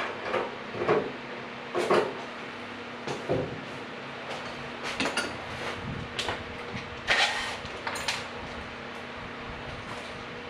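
Scattered knocks and metallic clatter of tools being handled and rummaged through, over a steady low hum.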